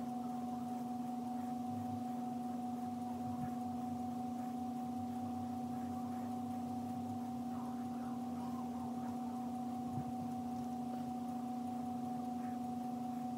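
A steady electronic drone of two held pure tones, one low and one about three times higher, with a faint click about ten seconds in.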